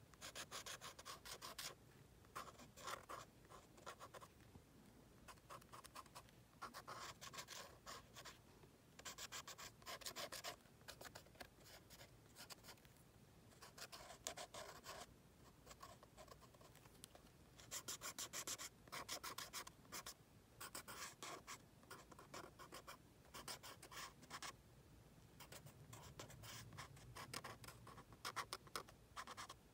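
Fine-tip pen scratching across paper in quick short strokes while drawing lines. The strokes come in bursts of a second or two, with short pauses between them.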